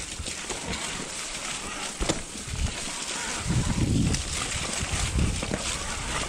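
Mountain bike rolling over a wet, muddy trail: a steady hiss of tyres through water and mud, with a sharp knock about two seconds in and low rumbles of wind on the microphone about halfway through and near the end.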